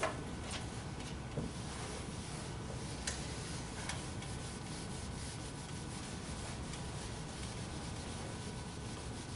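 Whiteboard eraser rubbing across a whiteboard, wiping off marker writing, with a few light knocks in the first few seconds.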